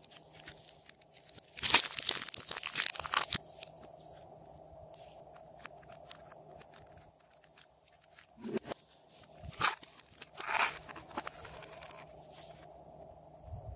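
Modeling clay worked by hands: sticky crackling and tearing noises as the clay is pulled and pressed. The loudest is a burst of about a second and a half near the start, followed by a few shorter crackles later, over a faint steady hum.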